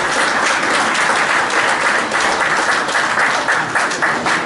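A roomful of people applauding, a dense steady clapping.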